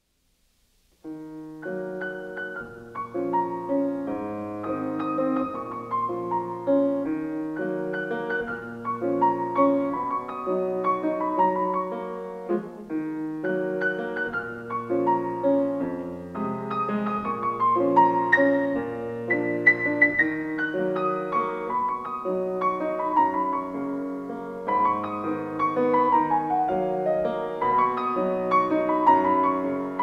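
Solo grand piano playing a melody over a bass line in repeating phrases, beginning about a second in.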